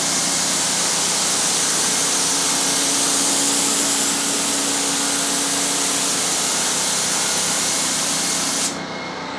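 Paint spray gun spraying primer: a steady, loud hiss of air and atomised paint that cuts off suddenly near the end as the trigger is released.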